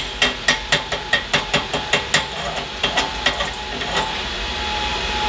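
Chipping hammer rapidly tapping slag off a fresh flux-core weld bead on steel, about four sharp metal taps a second. The taps slow and stop about three and a half seconds in, with a couple more around four seconds.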